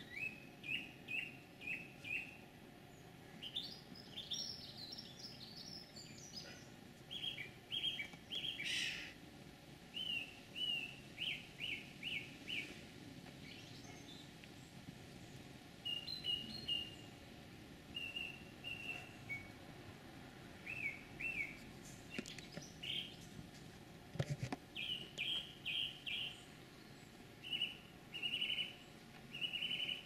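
A small songbird calling over and over: short, clear chirps in quick runs of three to five, with pauses between the runs. The uploader wonders whether it is a wren. From about four seconds in, a second bird sings a higher, rapid warble for a couple of seconds, and a single knock sounds about two thirds of the way through.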